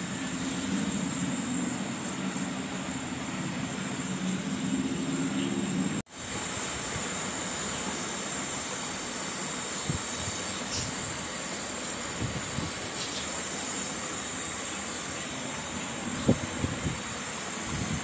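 Gas brazing torch hissing steadily while the refrigerant pipework at a fridge compressor is heated. The sound breaks off abruptly about six seconds in and then carries on the same.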